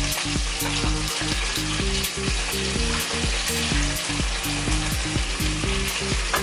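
Frozen vegetables sizzling steadily in a little hot oil in a pan, with background music underneath.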